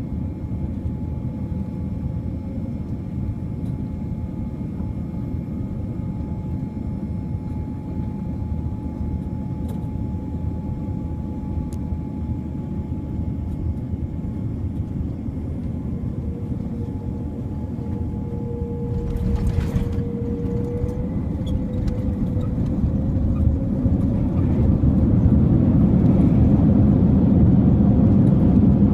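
Cabin noise inside a Boeing 787-9 airliner during its landing, a steady rush with a couple of faint steady tones. About two-thirds of the way through there is a short sharp clatter, after which a low rumble grows steadily louder.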